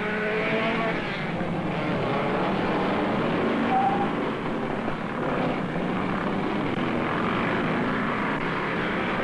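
Racing sports car engines running hard at speed, a dense steady drone with no single pass standing out.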